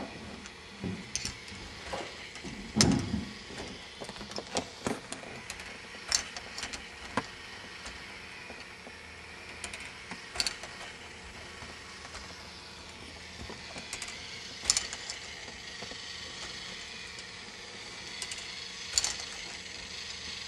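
K'nex slider ball lift running: irregular sharp plastic clicks and clacks as the balls and lift parts knock, the loudest about three seconds in, over a steady mechanical whirr.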